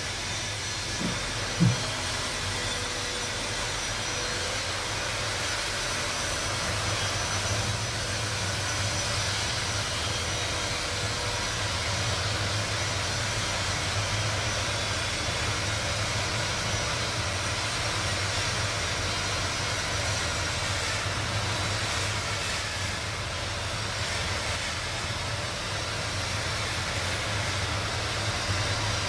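Artificial rain system spraying water over insulators in a high-voltage test lab: a steady, even hiss over a constant low hum. Two short clicks come about a second in.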